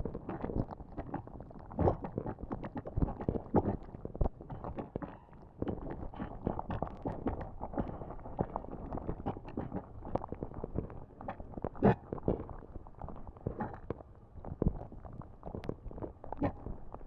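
Lava sound effect: a continuous low rumble and bubbling, broken by irregular pops and crackles several times a second. Louder pops come about two, three and twelve seconds in.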